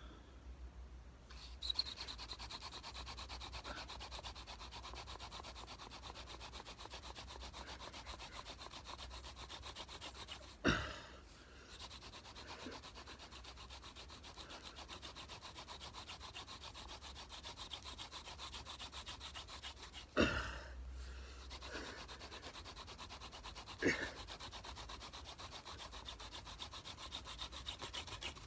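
Ragwort hand-drill spindle spun back and forth between the palms on a clematis hearth board, the wood grinding against wood in rapid, even rubbing strokes while drilling for a friction-fire ember. The rubbing breaks off a few times with a short sharp knock before resuming.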